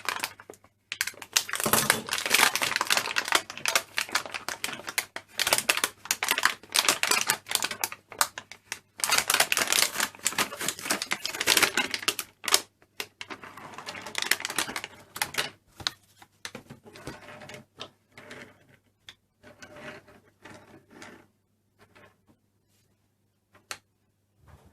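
Toy packaging being opened and handled: dense crackling and clicking for about twelve seconds, then thinning out to scattered clicks and taps.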